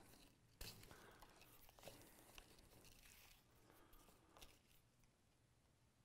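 Near silence with faint, scattered rustles and a small tick from hand saddle stitching: waxed thread and needles being drawn through punched holes in veg-tanned leather. The rustles fade out after about four and a half seconds.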